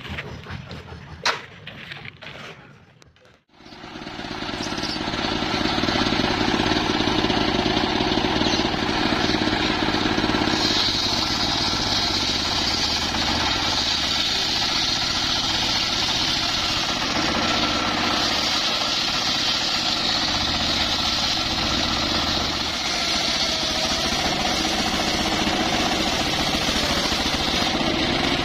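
A homemade circular sawmill running steadily while its blade rips a mahogany log lengthwise, with a harsher hiss from about ten seconds in. Before it there is one sharp knock about a second in.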